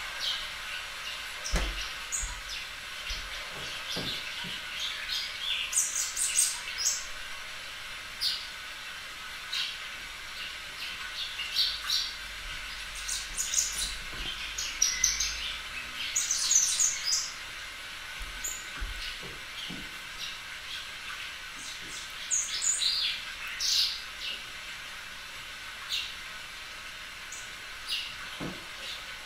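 Small birds chirping on and off in quick clusters of short, high chirps, with a few soft low thumps in between.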